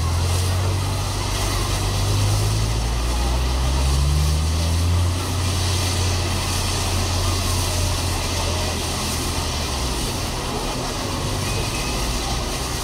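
Steam locomotives standing ready to depart, not yet under way: a steady low hum with a hiss over it, the hum fading in the last few seconds, and a crowd murmuring.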